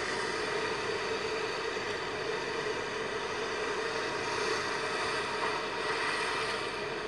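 Rough sea surf breaking and washing over the shore: a steady rushing noise without pauses.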